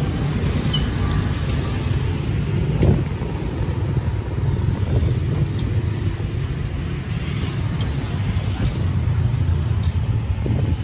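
Street traffic: a steady low rumble of passing road vehicles. A single knock comes about three seconds in, and a few faint ticks follow.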